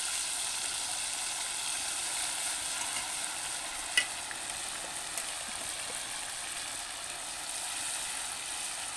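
Hot palm oil sizzling steadily in a black wok over a wood fire, heated for frying chicken. A single sharp click stands out about four seconds in.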